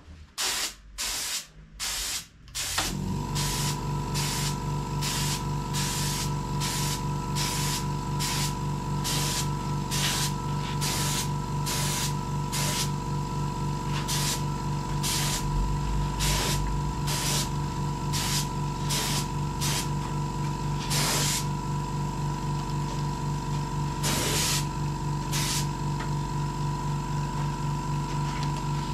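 Old air spray gun run at about 100 psi, spraying paint in many short hissing bursts. About three seconds in, an air compressor starts and runs steadily with a hum underneath the bursts.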